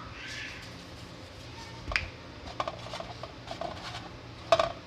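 Salt being sprinkled by hand over sliced eggplant: a soft rustle near the start, then a few light clicks and taps, the sharpest near the end.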